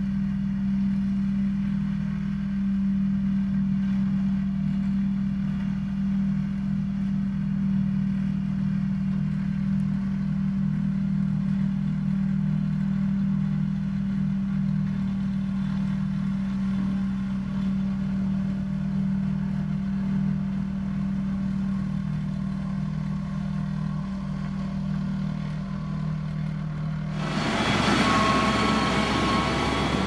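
Sakai single-drum road roller's diesel engine running steadily as the roller moves over loose soil, with a low steady hum. About 27 seconds in, the sound switches suddenly to a motor grader's engine, louder and hissier, with a few high steady tones.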